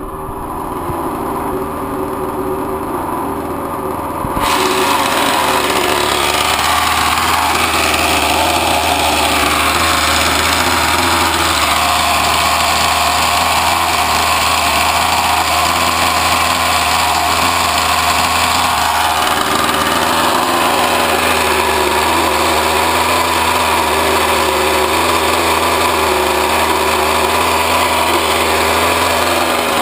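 RC boat motor spinning its drive shaft, with a steady hum and wavering whine that turn into a louder, rougher running noise about four seconds in. The drive shaft is running in a poorly fitting homemade stuffing tube, which the owner blames for the problem.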